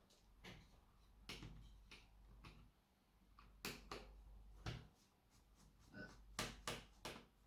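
Faint, scattered clicks and light knocks, a few seconds apart with a quick cluster near the end, from laptop parts and tools being handled during disassembly.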